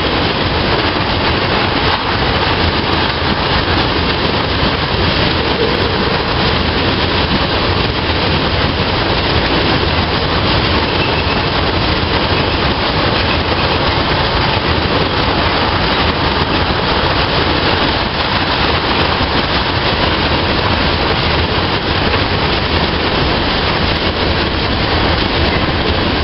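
Freight train tank cars rolling past on steel rails: a loud, steady rush and rumble of wheels on track.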